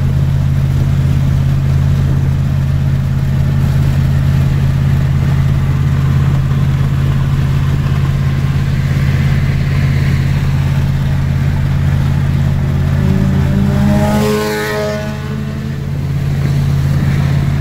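Steady low drone of a 2003 Dodge Ram 1500's 4.7-litre V8 and road noise heard inside the cab, cruising at about 70 mph and 2,000 rpm and running smoothly with no stalling after all eight coil packs were replaced. About fourteen seconds in, another vehicle's engine sweeps past briefly with a shifting pitch.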